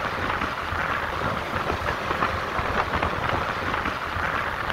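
Wind and handling noise on a handheld phone microphone: a steady rushing with a low, uneven rumble underneath.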